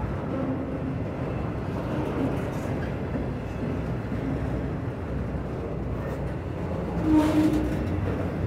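Freight train's autorack cars rolling past: a steady rumble of steel wheels on the rails, with a brief louder sound about seven seconds in.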